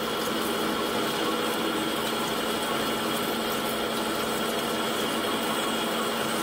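Colchester Master 2500 metal lathe running steadily with a high-speed-steel parting blade cutting into the spinning metal bar under coolant, a constant machine hum with steady tones.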